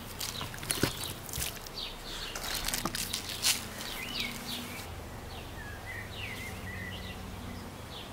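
Small birds chirping outdoors in short rising and falling calls, most of them in the second half, with scattered sharp ticks and clicks in the first few seconds.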